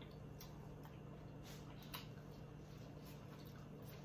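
Faint wet chewing close to the mouth, with soft sticky mouth clicks every half second or so, over a low steady hum.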